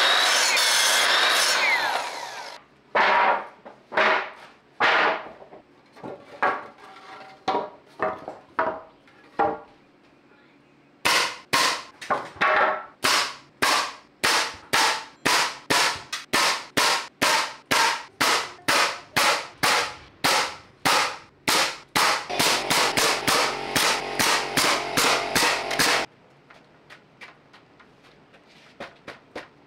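Ryobi sliding miter saw running through a cut in a 2x4 for the first couple of seconds, then a pneumatic nail gun driving nails into 2x4 wall framing: scattered shots at first, then a fast run of about two shots a second from around eleven to twenty-six seconds in.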